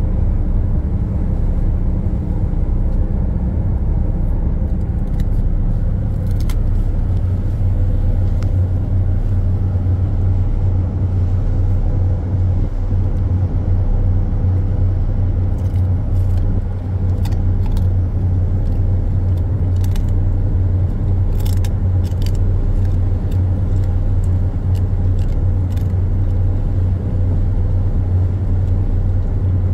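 Steady low hum of a ship's machinery running, with faint clicks of a dog gnawing a chewy treat, mostly in the second half.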